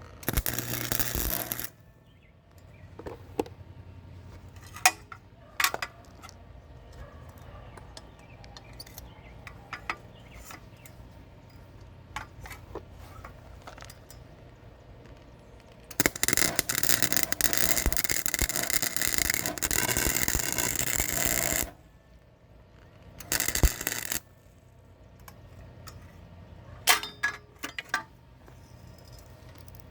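Welding on the truck bed's toolbox braces in bursts: a short one at the start, a long one of about six seconds in the middle, and two short ones near the end. Sharp metal clinks and taps come between them, over a low steady hum.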